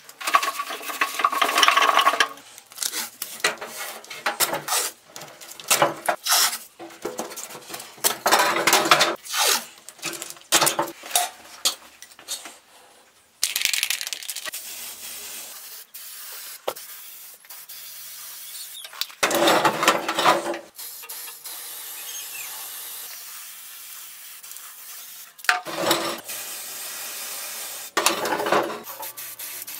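Clattering and knocking of handling for the first dozen seconds, then an aerosol spray-paint can hissing steadily for about ten seconds as paint is sprayed, with a louder stretch midway. A few more knocks come near the end.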